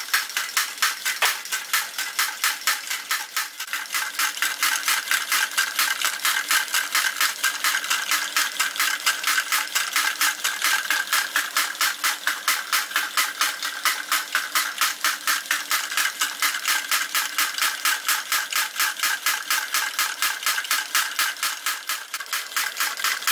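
A model Stirling engine running and driving a Wilesco toy drop hammer: a steady, even clatter of about three or four beats a second.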